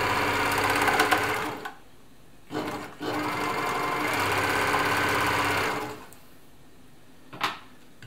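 Elna Air Electronic TSP sewing machine running at a steady speed to sew a wavy tricot-type stitch, in two spells, the second about three seconds long, with a short stop between. A single light click near the end.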